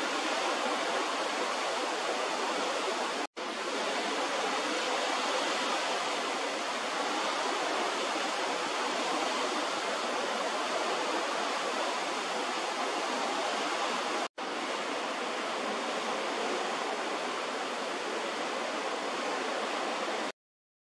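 Steady rushing noise of sea and wind heard from the deck of a ship under way. It cuts out for a split second twice, then stops abruptly near the end.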